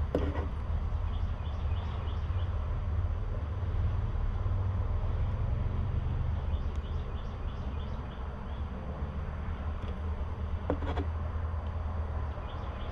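A steady low machine hum runs under faint, short scratching squeaks from a fine marker pen writing on the painted hard body of a fishing lure. A brief click sounds at the start and again about eleven seconds in.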